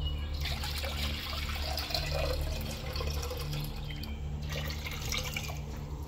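Water poured from a clay pot into a larger clay pot, splashing steadily as it fills and stopping about four seconds in, followed by a shorter splash near the end.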